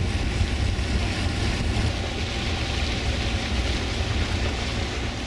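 Steady wind buffeting the microphone, a low flickering rumble, with an even hiss of water, heard aboard a boat under way.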